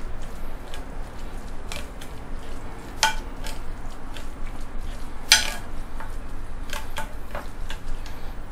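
A metal spoon stirring and scraping a thick paste of fermented soybean paste, minced ginger and garlic on a plate, with scattered clinks of the spoon against the plate. The loudest clink comes about five seconds in.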